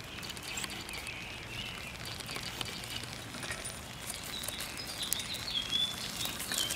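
Small birds chirping in the background in short twittering phrases, busier in the second half, with scattered faint clicks.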